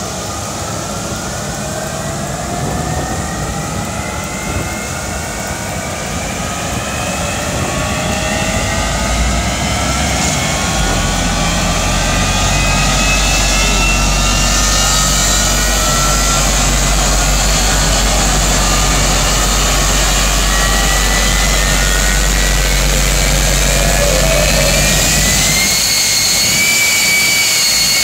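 Jet engine of a jet-powered Kenworth semi truck spooling up: a whine climbs in pitch and the sound grows louder over the first dozen seconds. It then runs steady and loud with a deep low rumble. About 26 seconds in, the rumble drops away, leaving a high steady whine.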